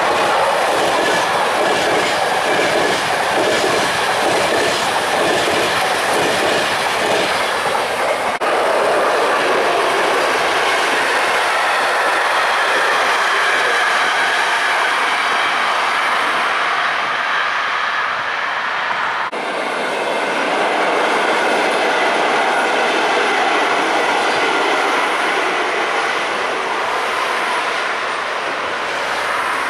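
A locomotive-hauled train of České dráhy passenger coaches rolling past close by. For the first eight seconds or so the wheels click over the rail joints in an even rhythm of about two beats a second, then it settles into a steady rolling rumble as the rest of the coaches pass.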